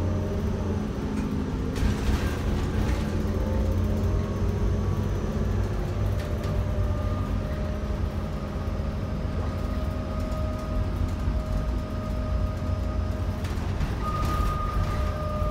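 Cabin noise of a 2008 New Flyer C40LFR compressed-natural-gas transit bus under way: a steady engine and drivetrain rumble. Over it, a whine slowly rises in pitch and gets louder near the end, and brief rattles come about two seconds in and again near the end.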